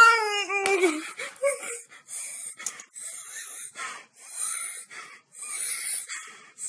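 A young woman's high, wavering squeal for about a second, followed by about six wheezing, breathy gasps, roughly one a second.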